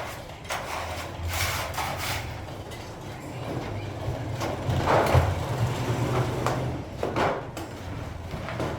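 Metalworking noise from kettle making: irregular knocks and scrapes of metal, the loudest about five seconds in and again about seven seconds in, over a low steady machine hum.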